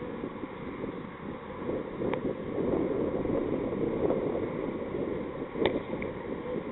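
Wind buffeting an outdoor microphone, a steady low rushing rumble, with two short sharp clicks, the louder one about a second before the end.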